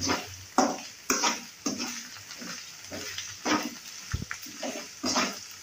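Metal spoon scraping and stirring fried potatoes with spices around an aluminium kadhai, in repeated strokes about two a second, over a light sizzle of the little oil left in the pan.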